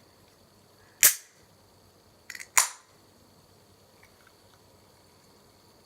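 Fizzy drink being opened: two sharp cracks, one about a second in and a second near the middle, each with a brief hiss after it.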